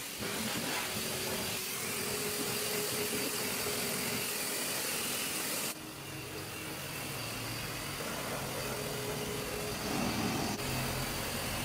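Steady mechanical noise, changing abruptly about six seconds in and again near the end.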